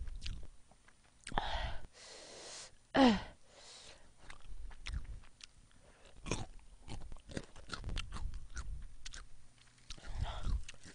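Close-miked chewing of food, with many small wet mouth clicks. Hissing breaths are drawn in and out through the mouth, about a second and a half in and again near the end, against the heat of spicy food. A short voiced exhale falls in pitch about three seconds in.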